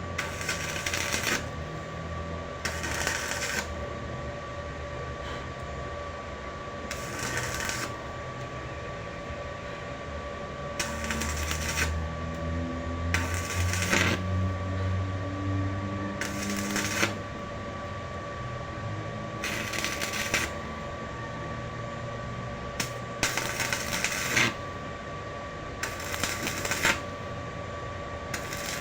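Arc welding in short bursts: the arc crackles about ten times, each burst under a second or so, with pauses of a few seconds between, like tack or stitch welds, over a steady high electrical hum.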